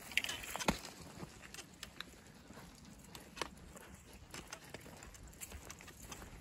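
Footsteps on a path of fallen leaves: irregular crunches and rustles, with a sharper crunch under a second in.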